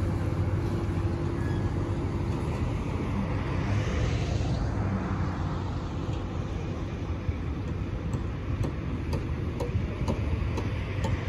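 Low, steady engine rumble from a pier-installation work barge as it motors slowly away from shore.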